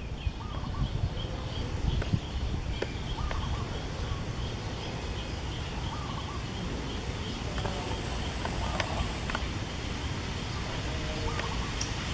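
Outdoor ambience in trees: a steady low rumble, with a high chirping repeated evenly several times a second that fades out about eight seconds in. A few short, faint calls and small clicks come through now and then.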